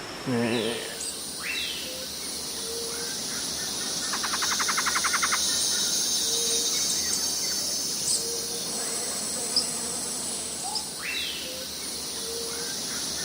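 Forest insects buzzing steadily in a high-pitched drone, with scattered bird calls: short falling whistles near the start and again late, and a fast pulsing call about four seconds in.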